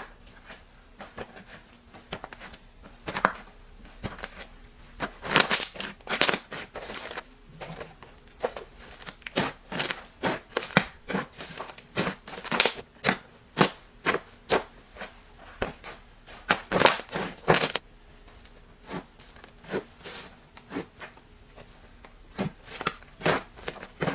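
Slime mixed with clay being squeezed and poked by hand, making irregular sharp popping clicks, several a second, which come in thicker clusters in places.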